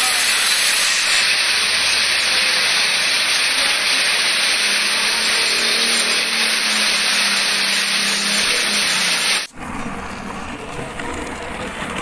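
Steady hiss of rain and traffic on a wet city road, tyres swishing through standing water, with a faint low engine hum in the middle. About nine and a half seconds in it cuts off suddenly to a quieter hiss.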